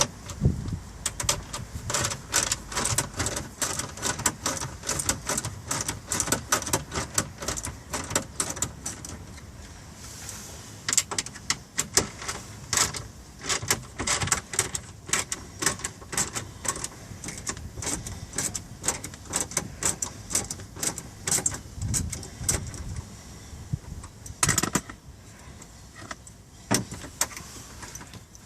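Ratchet with a 7 mm socket clicking in quick runs of sharp metallic ticks and rattles as two screws are backed out of the lower dash panel.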